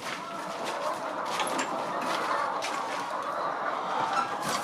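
A large flock of chickens in a poultry pen: a continuous din of clucking and cheeping, with a few sharp clicks.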